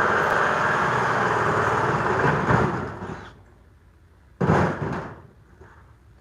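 Power drill running steadily, then winding down about three seconds in. About a second later a single loud bang off the steel garage door section, ringing briefly.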